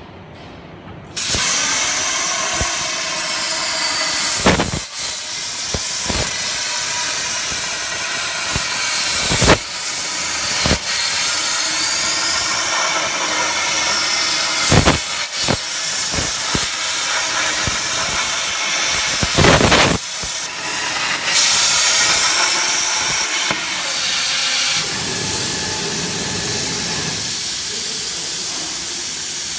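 Plasma torch cutting 6.35 mm-wall square steel tube on a CNC pipe-cutting machine. The arc and its air jet start suddenly about a second in, then hiss loudly and steadily, with several brief loud cracks along the way. The hiss turns duller near the end.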